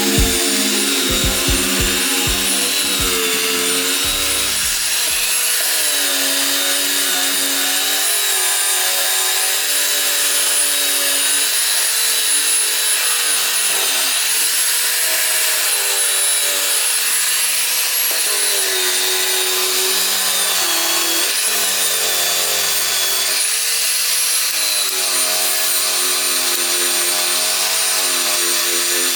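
A high-speed power tool whines as it strips paint and rust from steel car bodywork, the noise of abrasion filling the high end. Its pitch dips and recovers repeatedly as the tool is pressed into the work.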